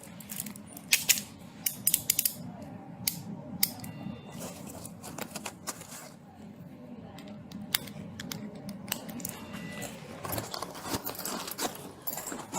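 Metal handcuffs clicking and jingling as they are put on and ratcheted shut, with a string of sharp clicks in the first few seconds and more scattered clicks later. Rustling movement follows near the end.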